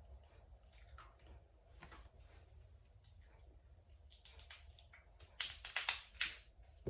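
Close-miked eating of seafood by hand: soft wet mouth and handling clicks, then a cluster of louder sharp crackling clicks from about four and a half to six and a half seconds in.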